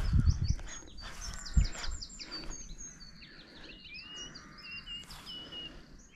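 A songbird singing a long, rapid, varied song of chirps and trills. There are low rumbles at the start and a single low thump about one and a half seconds in.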